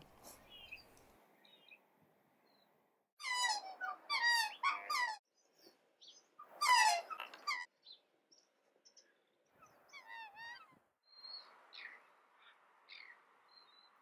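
Waterbirds calling: two bursts of quick, repeated calls about three and seven seconds in, and a shorter call near ten seconds, with faint scattered chirps between.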